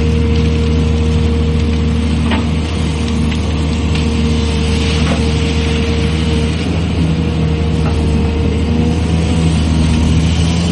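Excavator's diesel engine running steadily under load, with a held hydraulic whine and a few sharp knocks.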